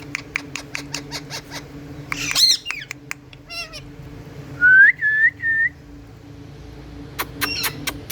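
Pet Indian ringneck parakeets calling and chattering, with scattered sharp clicks and a short squawk. About halfway come three short whistled notes, each rising and then holding, the loudest sound, over a steady low hum.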